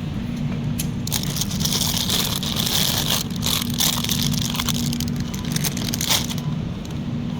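Shopping cart being pushed, rolling and rattling over a steady low hum, with a dense crackling rattle from about one second in until about six seconds in.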